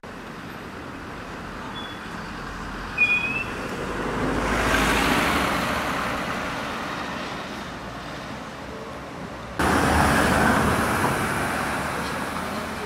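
Road traffic: a vehicle passing on the street, its noise swelling to a peak about five seconds in and fading away, with a short sharp click about three seconds in. A few seconds later louder traffic noise starts abruptly and slowly fades.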